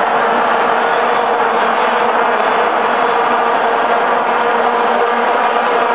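A packed stadium crowd, its noise carried by the steady, unbroken drone of many vuvuzelas held on one low pitch, heard through a phone's microphone.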